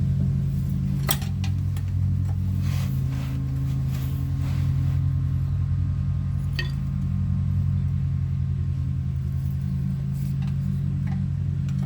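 Metal tool clinks on the driveshaft flange bolts as they are unscrewed and taken out, a handful of short clicks spread out over a steady low hum.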